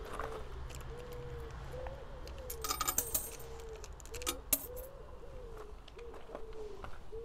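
A pigeon cooing over and over in a steady run of low, arched coos. About three seconds in there is a brief metallic jingle, the loudest sound, and a sharp click a little later.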